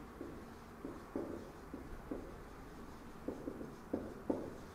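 Handwriting: a series of short, irregular writing strokes and taps, about ten in all, with quiet gaps between them.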